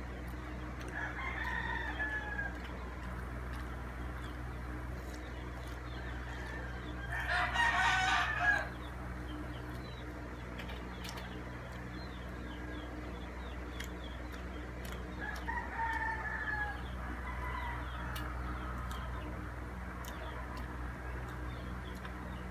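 Roosters crowing: one loud crow about seven seconds in, with fainter crows near the start and again about fifteen seconds in.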